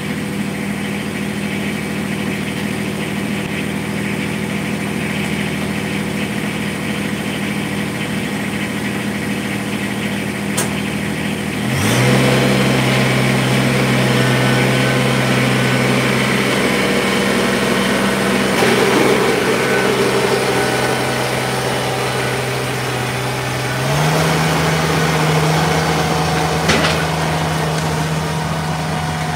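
Kubota compact tractor's diesel engine running steadily. About twelve seconds in the sound shifts and grows louder, and near the end the engine pitch steps up while the front-mounted snowblower throws snow.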